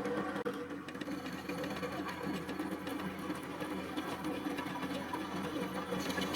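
Electric motor of a home-made drill-bit sharpener, salvaged from a washing machine, running steadily with an even hum.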